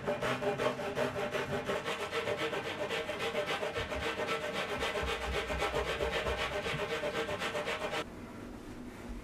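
Fine-toothed hand saw cutting through the end of a wooden frame rail in quick, even back-and-forth strokes. The sawing stops abruptly about eight seconds in.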